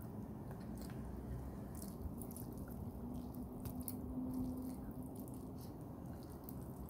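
Close-up open-mouthed chewing of chicken biryani, with many short wet lip-smacking clicks.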